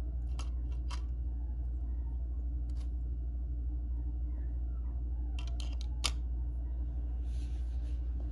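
Scattered light clicks and taps of a small plastic Lego model being handled and set down on a wooden floor, with a sharper tap about six seconds in, over a steady low hum.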